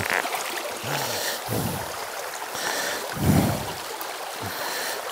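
Small mountain stream running steadily over rocks and riffles. A brief low sound rises above it about three seconds in.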